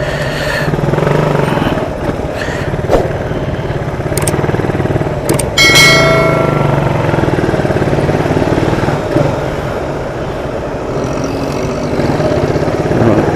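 Motorcycle engine running steadily while riding in traffic, picked up by a helmet-mounted external microphone. A short pitched beep sounds about six seconds in.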